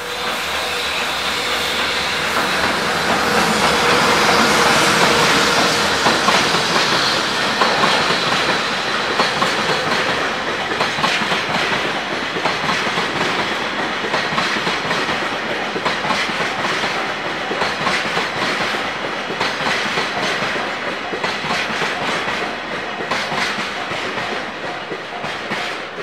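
JR Freight EH500 electric locomotive passing close by at the head of a long freight train of Taki 1000 oil tank wagons. The sound is loudest about four to five seconds in as the locomotive goes by, then settles into a steady rumble of the wagons rolling past, their wheels clicking rhythmically over the rail joints.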